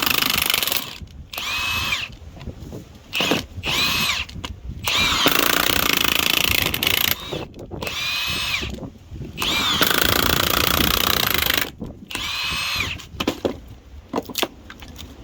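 Milwaukee M18 2767 high-torque impact wrench driving a spiral log-splitter screw bit into sawn timber. It runs in about seven bursts of one to two seconds as the trigger is pulled and let go, and its whine rises and falls with each pull.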